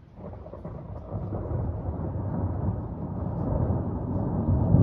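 Thunder rolling: a low rumble that swells sharply in the first second and keeps rumbling at a high level.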